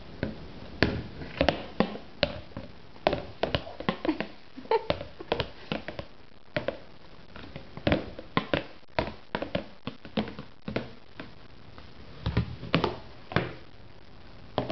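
A white plastic high-chair tray top banged and clattered against the high chair's plastic tray: sharp hard-plastic clacks in irregular runs, several a second at times, with short pauses between.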